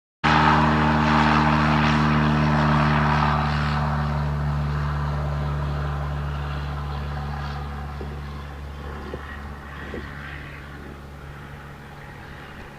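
Light single-engine propeller aircraft's piston engine running steadily. It starts suddenly just after the start and fades away slowly.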